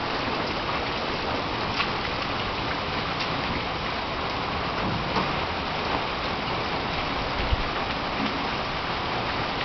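Steady rain falling: an even hiss with scattered light drop ticks.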